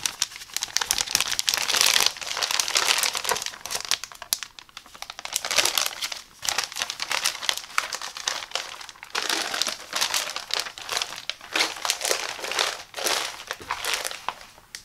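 Clear PEVA plastic shower curtain liner crinkling as hands unfold and handle it: a dense crackle of thin plastic sheeting that eases off briefly a few times.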